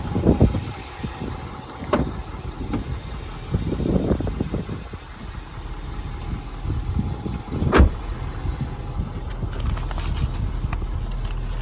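Wind buffeting the microphone with irregular low thumps, a single sharp knock about eight seconds in, then a steadier low rumble.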